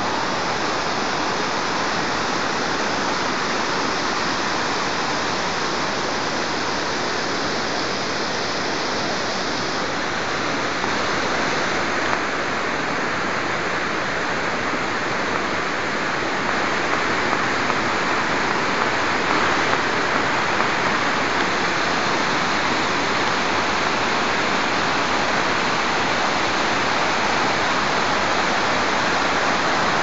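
Waterfall rushing steadily: an even, continuous noise of falling water, growing slightly louder about halfway through.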